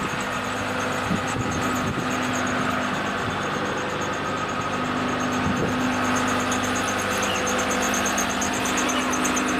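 Boatyard travel lift's engine running steadily with a constant hum over it, as the lift raises the sailboat out of the water.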